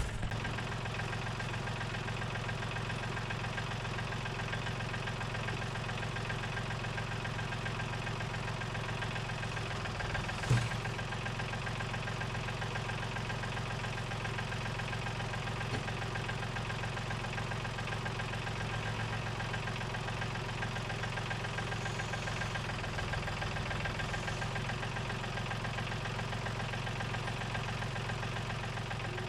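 John Deere tractor engine running steadily at idle, a constant hum. A single sharp knock about ten seconds in.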